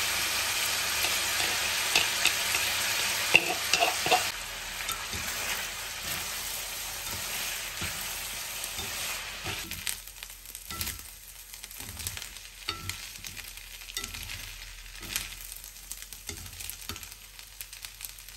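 Spaghetti and pancetta sizzling in a stainless steel frying pan as the egg and parmesan mixture is tossed through with chopsticks, which click and scrape against the pan. The sizzle is loud for about the first four seconds, then dies down, leaving mostly the scattered clicks of stirring.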